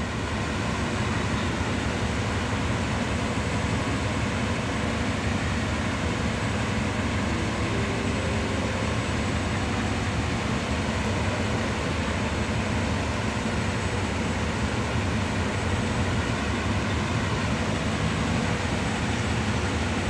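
Diesel-electric locomotive D.4519, a GE CM22-7i, running steadily with rapid train 168.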